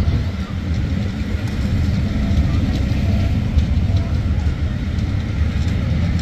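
Steam-hauled passenger coaches rolling past close by: a steady low rumble of wheels on the rails, with faint clicks over it.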